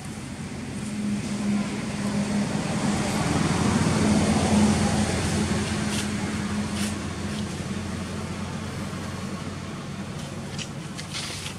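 Steady hum of a motor vehicle's engine, growing louder to a peak about four to five seconds in and then fading somewhat, with a few faint clicks.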